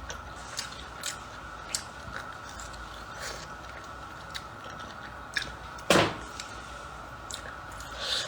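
Close-up eating sounds: sparse chewing with small wet clicks and smacks, and one louder knock about six seconds in.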